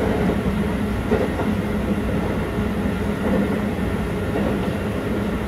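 Keikyu electric train running at speed, heard from inside the passenger car: a steady rumble of wheels on rails with a constant low hum.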